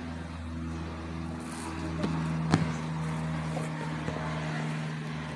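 Low engine drone of an airplane passing overhead, swelling and then easing off, with a sharp click about halfway through.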